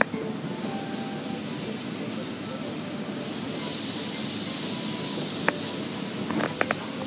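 Automatic car wash spraying water onto the car, heard from inside the cabin as a steady hiss that grows louder about three and a half seconds in, with a few light knocks near the end.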